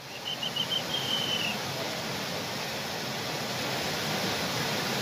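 Fast-flowing muddy floodwater rushing down a rocky hillside torrent: a steady, dense rushing noise. A few short high tones and one longer one sound over it in the first second and a half.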